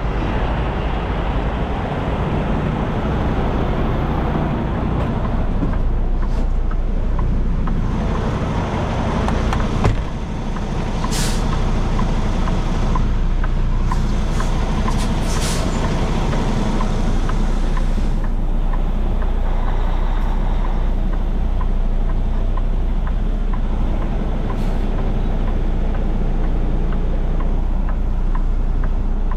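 Semi-truck diesel engine running steadily, with short air hisses from the truck's air system about a third and halfway through.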